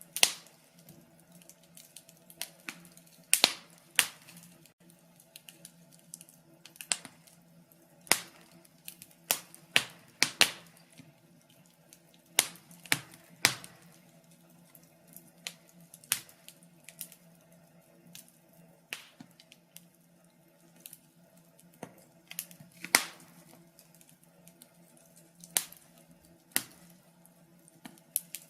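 Wood fire crackling in a fireplace: irregular snaps and pops, a few sharp ones clearly louder than the rest, over a faint steady low hum.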